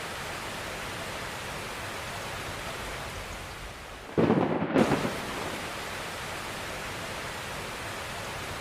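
Steady hiss of heavy rain, and about four seconds in a sudden loud crack of thunder from a close lightning strike, lasting under a second.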